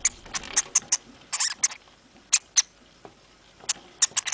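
Hamster gnawing and scrabbling at cardboard: a dozen or so short, sharp crackles at irregular intervals.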